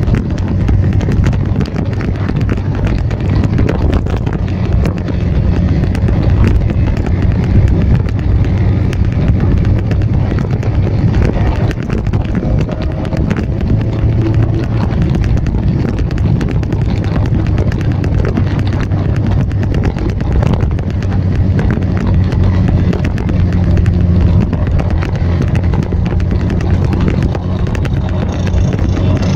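Vespa scooter engines running at a steady cruising speed, their note rising and falling a little, with wind buffeting the microphone.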